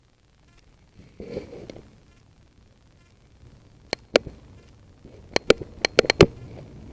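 A soft rustle about a second in, then a series of short, sharp clicks: two, then six more in quick succession near the end.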